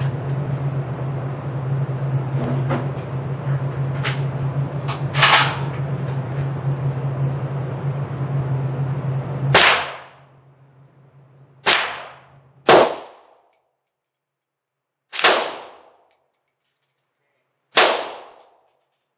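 Five single shots from an Arsenal SLR-107fr AK-pattern rifle firing 7.62x39, loud and sharp with short echoing tails, at an uneven pace in the second half. Before them a steady low hum with a couple of fainter bangs.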